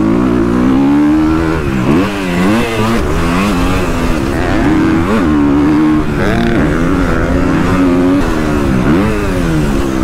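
Motocross bike engine running hard on the track, its pitch climbing and dropping again and again as the throttle is opened and closed.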